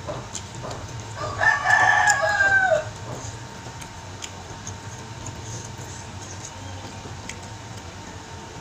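A rooster crowing once, a single call of about a second and a half starting about a second in, dropping in pitch at its end. Otherwise only faint clicks of fingers picking through rice and meat on a plate.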